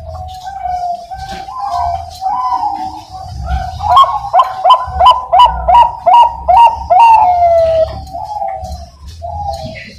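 Bangkok-bred zebra dove (perkutut) singing its cooing song: warbling coos, then a run of about eight quick, clipped notes at roughly three a second, closing on a long falling coo.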